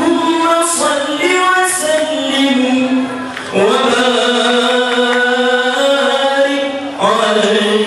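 Male voices chanting a habsyi sholawat in long, drawn-out melodic phrases, a new phrase starting about halfway through and another near the end.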